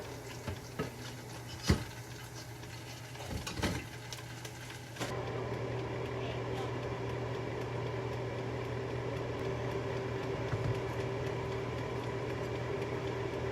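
A few knocks and clatters of kitchen work, then about five seconds in a kitchen appliance switches on and its fan or motor hums steadily with a constant tone.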